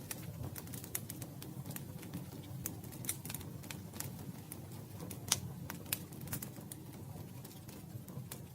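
Campfire burning: wood crackling with irregular sharp snaps over a low steady rumble of the flames, the loudest pop about five seconds in.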